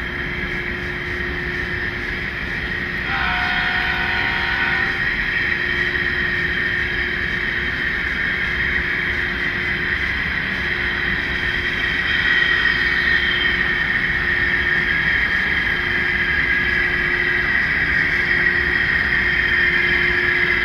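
Sound-equipped model diesel locomotive running steadily with its engine sound, and a multi-note horn chord sounding briefly about three seconds in.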